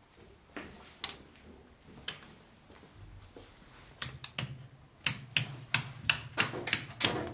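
Old toggle switches on a control panel being flipped by hand, each one a sharp click. A few scattered clicks come first, then a quick run of about three a second over the last couple of seconds.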